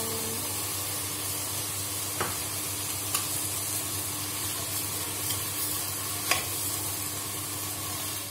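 Basmati rice and peas sizzling in hot oil in an aluminium pressure cooker as a steel spoon stirs them, with a steady hiss and three sharp clinks of the spoon against the pot.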